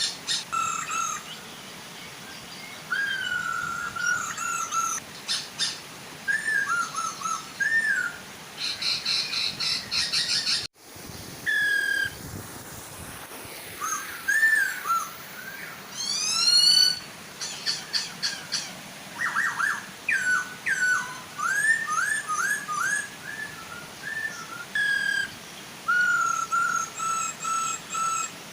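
Hong Kong poksay laughingthrushes calling over the steady hiss of a gentle waterfall: repeated whistled notes, chattering trills and quick rising calls from more than one bird. The sound drops out for a split second about ten seconds in.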